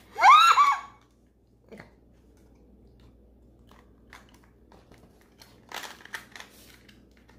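A brief, loud pitched vocal sound from a woman near the start. Then a few faint plastic clicks and rustles as the Canon EOS M50's battery compartment is handled to put the battery in, with a small cluster of clicks about six seconds in.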